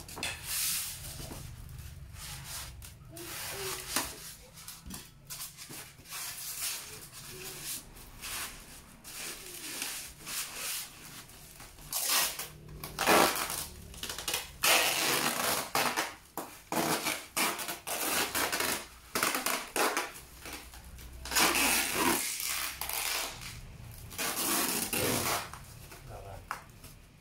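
Irregular handling noises: rubbing, scraping, rustling and light knocks, coming in bursts that grow busier and louder about halfway through.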